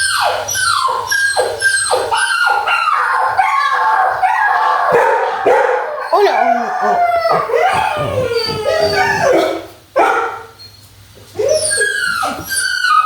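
Puppies crying and whining: many high, wavering yelps and whimpers overlapping, with a brief lull about ten seconds in.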